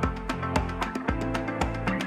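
Background music with a steady beat, about two strong beats a second.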